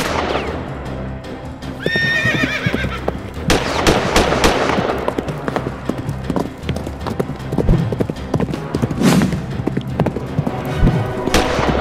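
Horse sound effects laid over stick-horse riding: hooves clip-clopping and a horse whinnying about two seconds in, with background music.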